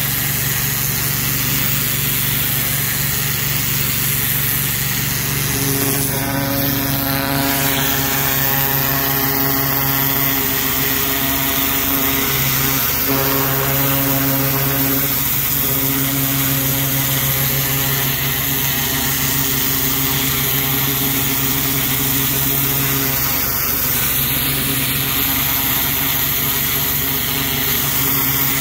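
Trailer-mounted pressure washer's engine running steadily under load, with the hiss of the high-pressure water spraying from the wand onto brick.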